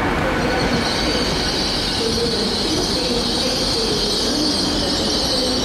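TransPennine Express passenger train passing along a platform road, its wheels rolling on the rails in a steady loud rush. A high hiss from the wheels comes in about half a second in.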